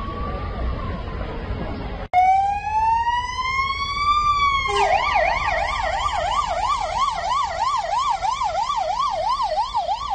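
Fire engine siren. After about two seconds of steady rushing noise with a faint siren beneath it, a sudden cut brings in the siren loud, sweeping slowly upward; about halfway through it switches to a fast yelp, rising and falling about three times a second.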